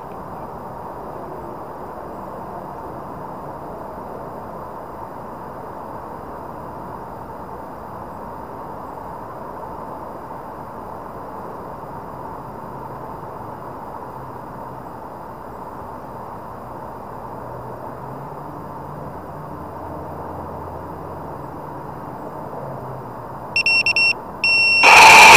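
Steady background hiss, then near the end a couple of short, high electronic beeps, followed by the sudden, loud start of a small drone's motors.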